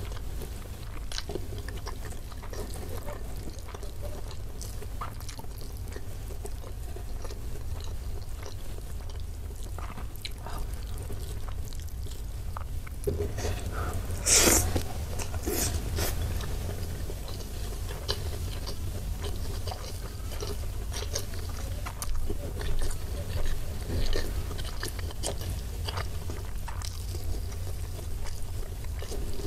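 Close-up chewing of beef rendang and rice eaten by hand, with small mouth clicks throughout. There is a louder burst about halfway through as a handful goes into the mouth, and a few more louder chews near the end.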